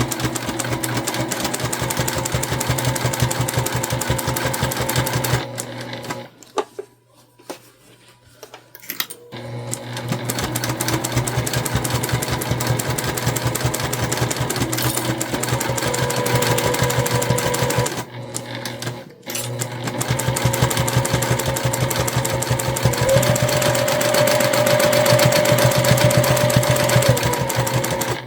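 Sewing machine stitching a seam through layers of quilted fabric, zipper and lining, in fast, steady runs. It stops for about three seconds roughly a quarter of the way in, and again briefly about two-thirds through, then starts again.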